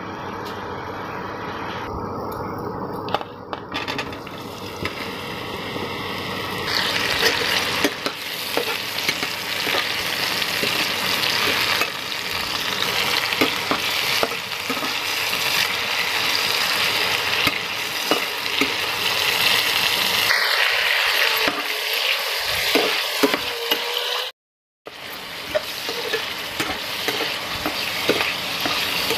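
Mushrooms sizzling as they fry in hot mustard oil in a metal kadai, with a steel spatula scraping and stirring them. The sizzle builds up after the first few seconds and breaks off for a moment near the end.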